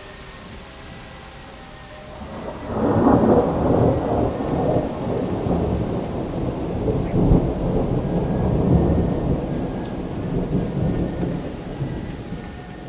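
Thunderstorm: steady rain, then a long roll of thunder that breaks in about two and a half seconds in, rumbles on and slowly fades near the end.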